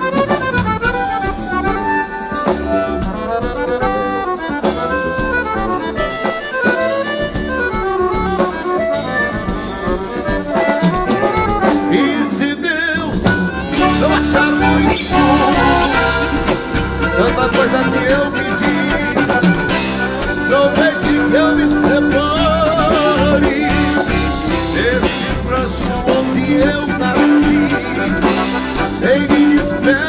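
Live gaúcho band music led by accordion, with electric guitar and drums behind: an instrumental stretch between sung verses.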